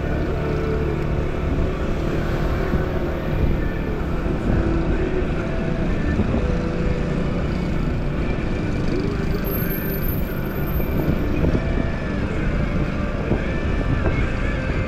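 Motorcycle engine running steadily while riding slowly, with a steady low rumble of wind and road noise on the mic.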